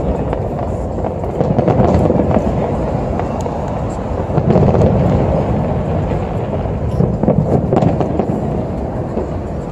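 Aerial fireworks display: a continuous rumble of shell bursts with many sharp crackling pops scattered through it.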